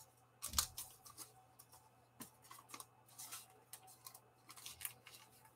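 Faint rustling and soft clicks of trading cards and plastic card sleeves being handled, with a sharper click about half a second in.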